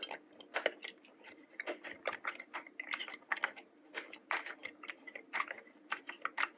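Small plastic toy train parts clicking and tapping as they are handled, in quick irregular clicks several times a second.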